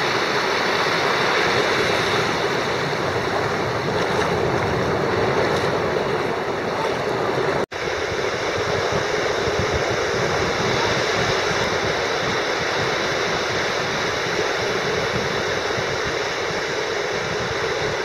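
Ocean surf breaking and washing up a sandy beach, a steady rush of water. It drops out for an instant about eight seconds in.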